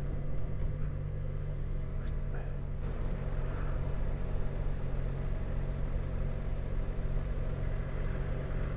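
Motorcycle engine running steadily at low revs in slow town traffic, with an even rumble of road and traffic noise.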